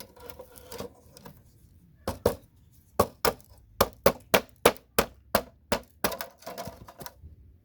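Hammer and chisel knocking CPU sockets off a motherboard: a rapid run of about fifteen sharp, clinking strikes, roughly three a second.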